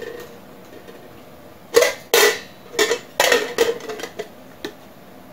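Thin aluminium lid, cut from an aerosol can, clinking against the rim of a thick aluminium mug as it is set on and handled: a quick run of sharp metallic clinks with a short ring, starting about two seconds in and ending just before five seconds.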